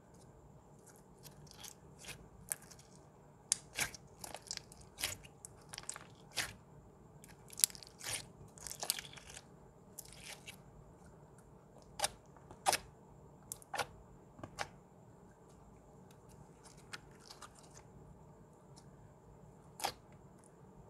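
Clear glitter slime pressed and stretched by hand, making irregular sticky clicks and pops, some in quick clusters and some single, with short pauses between.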